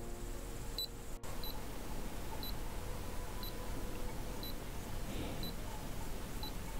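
Neewer timer remote beeping once a second with short high pips, counting off a long camera exposure.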